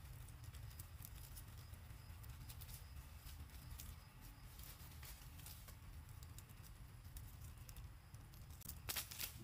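Faint rustling and light ticking of leaves and twigs as monkeys climb through the branches, over a low steady rumble, with a cluster of sharper clicks about nine seconds in.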